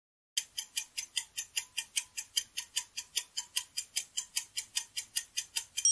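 Clock-ticking sound effect used as a quiz countdown timer: quick, even ticks, about five a second, starting about half a second in.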